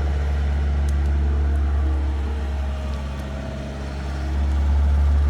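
An excavator's diesel engine running steadily with a deep hum, growing somewhat louder near the end.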